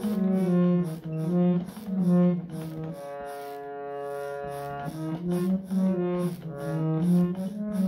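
Instrumental prelude to a devotional bhajan: a melody in steady held notes over a light, even percussion beat, with a sustained chord about three seconds in.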